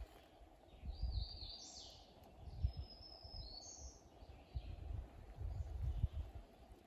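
A bird calling: a run of short high chirps and a couple of longer whistled notes in the first half, then it stops. Low, dull thumps sound underneath throughout.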